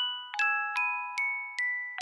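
Instrumental outro music: a bright, bell-like melody of single struck notes, about five in two seconds, each ringing on and fading before the next.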